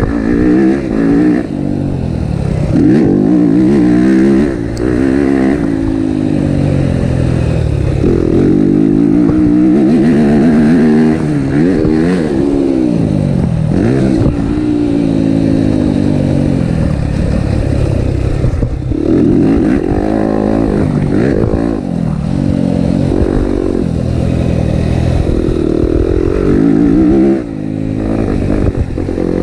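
Yamaha motocross bike's engine revving up and dropping back again and again as it is ridden around a dirt track. The throttle is shut briefly near the end, then opened again.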